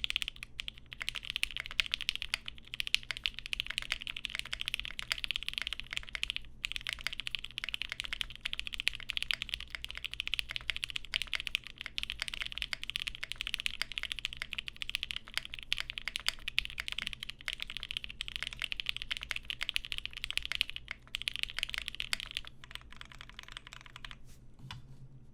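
Continuous fast typing on a GHS.RAR 75% custom mechanical keyboard with Alpaca linear switches lubed with 205g0 and filmed, on a carbon-fibre half plate with GMK keycaps. A dense, steady stream of keystrokes with a brief pause about six seconds in, thinning out near the end.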